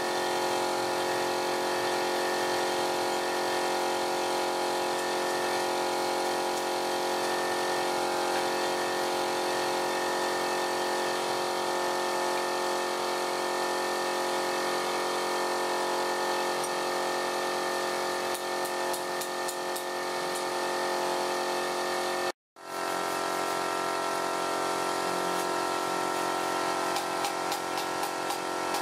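Electric wood lathe running steadily with a chisel held against the spinning wooden handle. About 22 seconds in it cuts off abruptly, and an electric drill runs, boring into the end of the handle.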